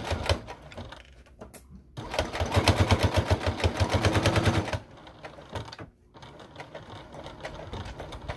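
Electric domestic sewing machine stitching a seam in stop-start runs: a brief run at the start, then a steady run of about three seconds from two seconds in, the needle's rapid, even clatter, with only faint clicks between runs.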